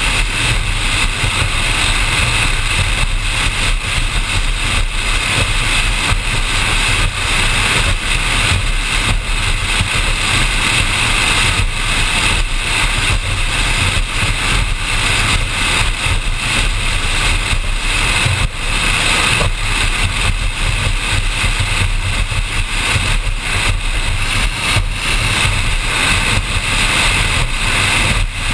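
Offshore powerboat running at speed: a steady engine drone under a loud rush of wind and spray noise over the deck-mounted microphone, with frequent small buffets.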